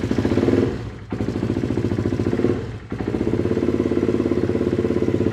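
1982 Honda XR250R's single-cylinder four-stroke engine running just after being kick-started, with a steady pulsing beat; it dips briefly twice in the first three seconds, then settles into an even idle.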